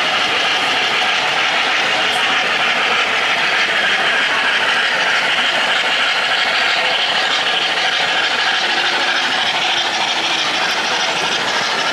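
O-gauge three-rail model trains running, with a smoke-puffing steam locomotive and passenger cars: a steady rush of wheels rolling on track.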